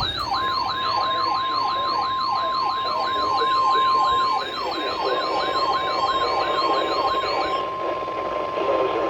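Electronic siren wailing up and down about twice a second over a steady high alert tone and radio static. The siren stops about three-quarters of the way in, while the tone carries on almost to the end.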